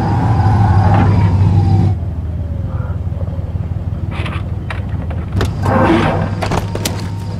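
Car engine running, its pitch rising and falling as the car drives past, then dropping off suddenly about two seconds in. After that comes a steady low engine rumble with scattered clicks and knocks and a short noisy rustle near the end, as the car door is handled.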